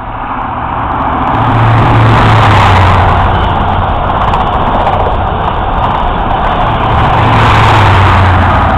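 East Coast InterCity 125 HST passing at speed: a loud rush of wheels and air, with the deep drone of a Class 43 diesel power car's engine swelling as the leading power car goes by about two seconds in, and again as the rear power car passes near the end.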